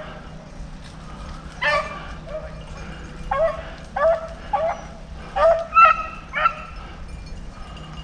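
Rabbit-hunting dogs giving voice in short, pitched barks, about eight in irregular bunches, as the pack runs a rabbit on its trail.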